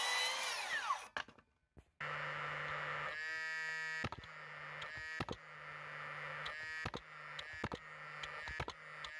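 Circular saw blade spinning down at the end of a cut, its whine falling away within the first second. After a short pause a Paslode cordless nailer whirs and fires a run of about ten nail shots into timber.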